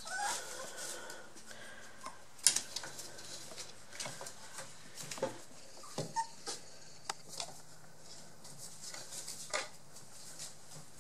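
Three-week-old Border Collie puppies playing: a short whimper right at the start, a few brief squeaks, and scattered clicks and rustles of paws and shredded newspaper. A single sharp click about two and a half seconds in is the loudest sound.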